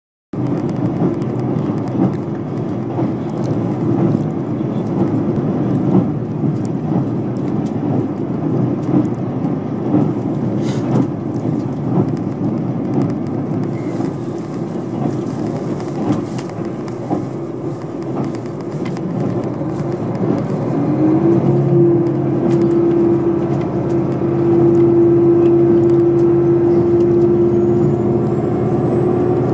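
Inside a KiHa 261 series diesel express railcar under way: a steady rumble of wheels and engine with small rail ticks. About two-thirds in, a tone rises and holds as a strong steady drone while the noise grows louder, and near the end a faint high whine rises: the intercooled turbocharged diesel engine working under power.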